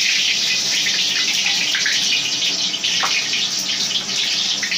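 Steady, loud hiss from a fried-rice stall's gas-fired wok station, a wok on an LPG burner.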